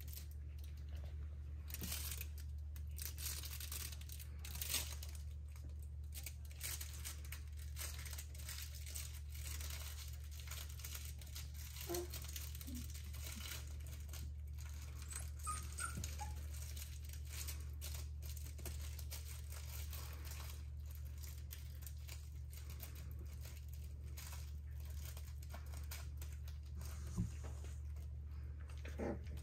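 Plush crinkle toys rustling and crinkling as young Dalmatian puppies chew and tug at them, with a few brief puppy squeaks and whimpers. A steady low hum runs underneath.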